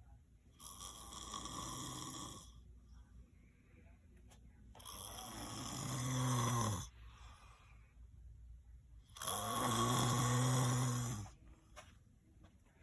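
A person snoring: three long snores about four seconds apart, each a low buzzing drone, the second and third louder than the first, with quiet breathing between them.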